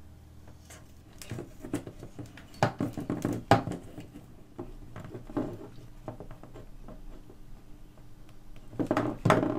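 Small, irregular clicks and scratching as fingers fit a small metal keeper clip onto a phonograph pickup's wires. The noises are busiest in the first few seconds and again near the end.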